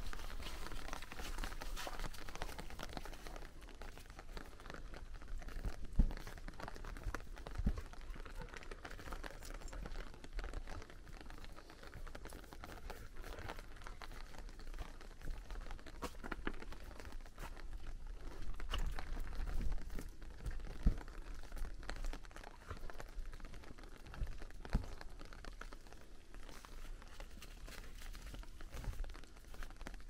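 Footsteps of a walker and a husky on a wet stone path covered in fallen leaves: a steady crackle and crunch of leaves underfoot, with a few louder thuds of footfalls.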